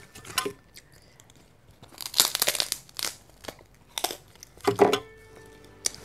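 A paper tissue crinkling and rustling as it is crumpled in the hand, in short crackly bursts with the densest run about two seconds in.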